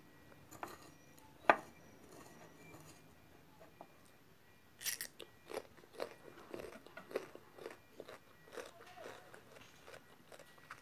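A person chewing and crunching food close to the microphone, in irregular bites, with one sharp click about a second and a half in.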